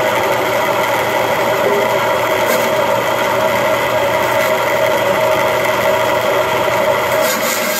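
Band saw running steadily, its motor and blade humming with an even tone. Near the end there is a brief clatter as the blade snaps, ruining it.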